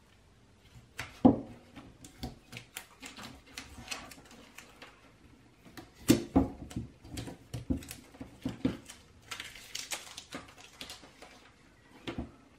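Electrical tape being peeled off a circuit board, then the board handled and clipped into a metal helping-hands stand: irregular clicks, taps and rustles, with a sharp click about a second in and a cluster of louder knocks around six seconds in.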